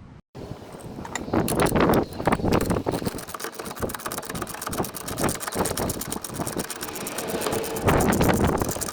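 3/8-inch hand ratchet clicking rapidly in repeated strokes as it turns a bolt.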